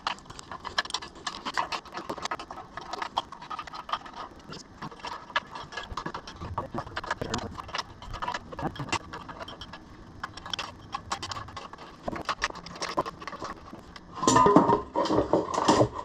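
Hand wrench working the bolts of a spring-loaded clutch pressure plate on an engine flywheel: a run of light, irregular metallic clicks and scrapes. A louder clatter comes near the end.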